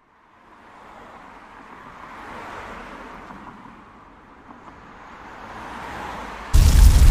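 Road traffic: cars passing on a street, the noise swelling and fading twice. Near the end, loud music with heavy bass cuts in suddenly.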